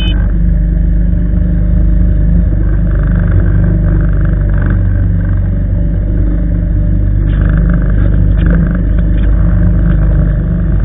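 A small boat's engine running steadily at cruising speed while under way.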